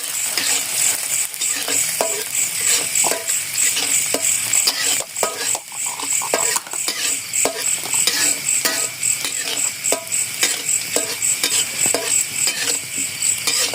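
Night insects, crickets by their sound, chirping in an even, high-pitched pulsing trill, over a sizzling hiss scattered with irregular small clicks and knocks.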